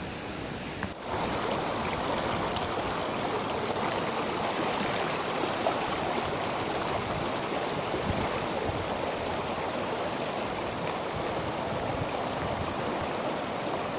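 River water rushing steadily over rocks in shallow rapids, louder from about a second in.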